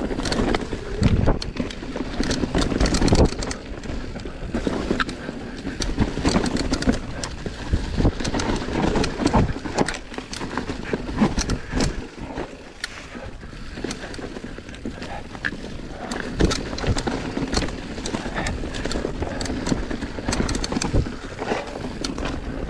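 Electric mountain bike riding fast down a leaf-covered forest dirt trail: tyres on dirt and leaves, with frequent rattling and clattering knocks from the bike over bumps and roots. A constant low rumble of wind noise on the microphone runs underneath.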